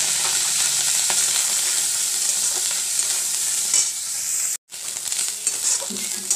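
Small dried fish (kachki shutki) sizzling as they fry in hot oil in a metal wok, with a spatula scraping and stirring them. The sizzle cuts out for a moment about two-thirds of the way through, then carries on a little quieter.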